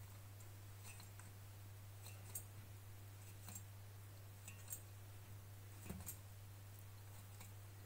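Faint sound of a knife sawing horizontally through a baked sponge cake to split it into two layers, with a few scattered light clicks over a steady low hum.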